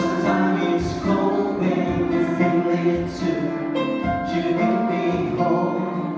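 Live pop band music playing a song's instrumental opening, with a steady beat.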